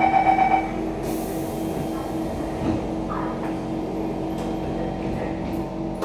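Door-closing warning beeps inside a Siemens C651 train carriage, which stop under a second in, followed by a brief hiss about a second in as the doors shut. After that the standing train's equipment hums steadily.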